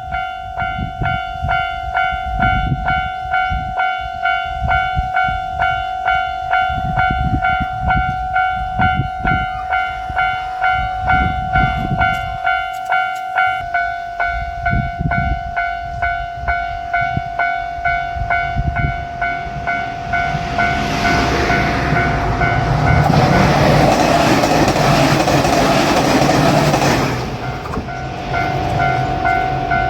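Japanese level-crossing warning bell ringing in a fast, steady run of repeated strikes. About two-thirds of the way in, a JR Shikoku 2700 series limited-express diesel railcar passes: its engine and wheel noise swells up, drowns out the bell for several seconds, then falls away, leaving the bell ringing again near the end.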